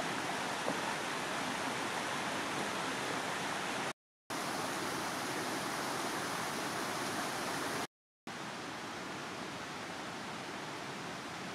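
Steady rush of storm-swollen stream water and runoff, broken by two short silences about four and eight seconds in; after the second gap it is a little quieter.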